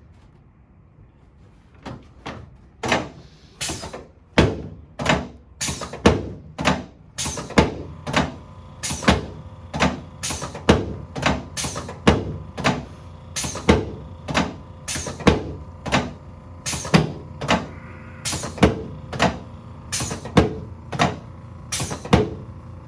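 A long run of evenly spaced sharp thumps, about three every two seconds, beginning about two seconds in.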